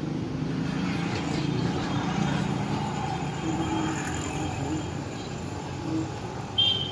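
Street traffic running steadily, with a short vehicle horn toot near the end.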